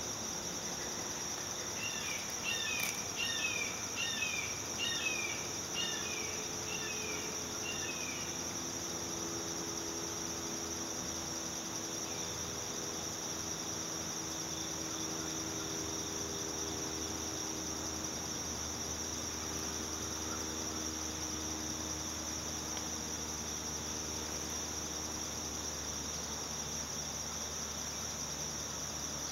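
Steady high-pitched chorus of insects such as crickets or katydids. From about two seconds in, for some six seconds, a bird calls a run of short falling notes, about two a second.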